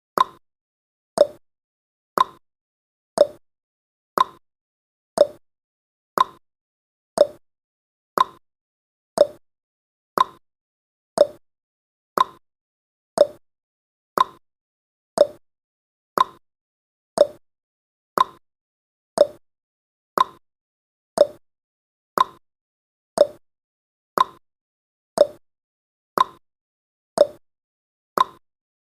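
Countdown timer's tick sound effect: one short, sharp tick each second, in a steady unbroken rhythm.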